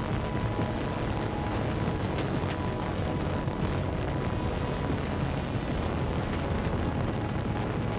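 Camera drone's propellers buzzing steadily, with a constant whine and low wind rumble on the microphone.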